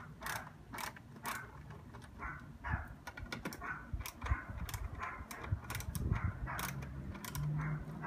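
Ratcheting screwdriver backing screws out of a plastic housing cover: a run of irregular ratchet clicks and short scraping turns, about one or two a second.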